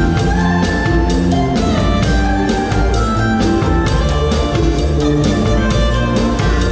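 Live band music: a drum kit keeping a steady beat under electric guitars and keyboard.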